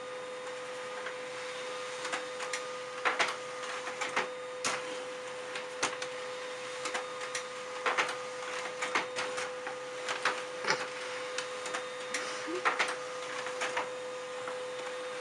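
Desktop laser printer running as it feeds and ejects a page: a steady hum with irregular clicks and clacks from the paper mechanism.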